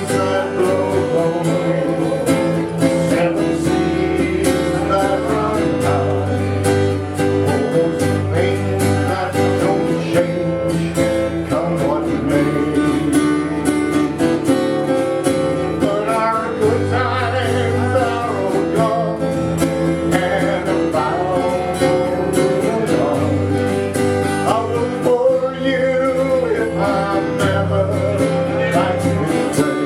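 Live acoustic folk band playing a slow country-folk song: strummed acoustic guitars with a lead melody line over them.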